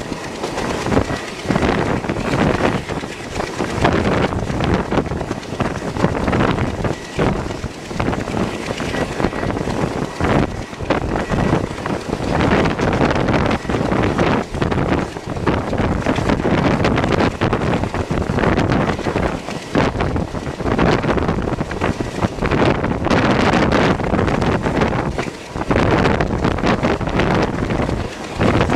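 Wind buffeting the microphone at the open window of a moving train, over the train's running noise. It swells and dips unevenly, with many short drops.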